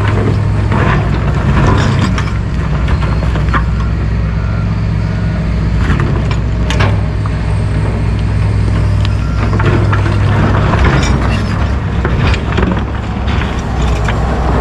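Heavy diesel engines of John Deere tracked excavators running under load in a steady low drone while digging, with occasional knocks and rattles scattered through.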